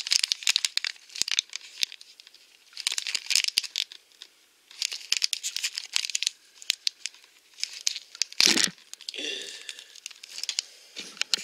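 Thin plastic Shopkins blind bag crinkling and tearing in the hands in several bursts, with the loudest, sharp tear about eight and a half seconds in.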